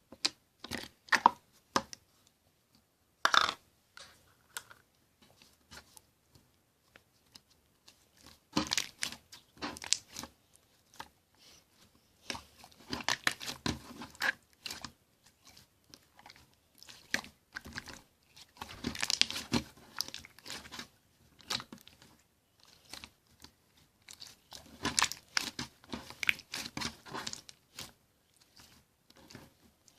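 Slime being handled by hand: squeezed, stretched and pressed in irregular bursts of crackling and clicking, with short pauses between them.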